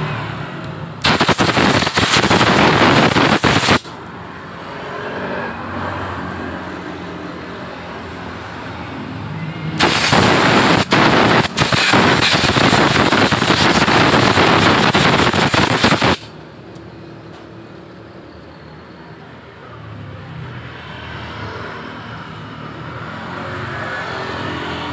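Compressed-air blow gun blasting air through the plastic parts of a motorcycle fuel pump assembly to clean them out, in two loud hissing bursts: one of about three seconds starting a second in, and a longer one of about six seconds from about ten seconds in.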